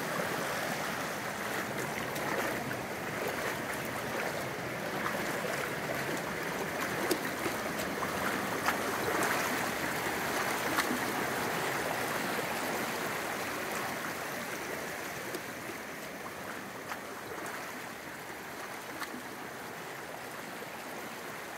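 Creek water running steadily over rocks, with a few faint clicks scattered through it; the rush eases slightly in the second half.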